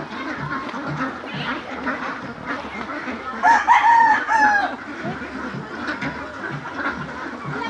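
Large flock of domestic itik ducks quacking and chattering continuously, with a louder drawn-out call about three and a half seconds in.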